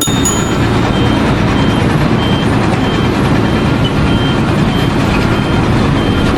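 Heavy vehicle engine running loudly and steadily while its reversing alarm beeps at an even pace, a little under two beeps a second.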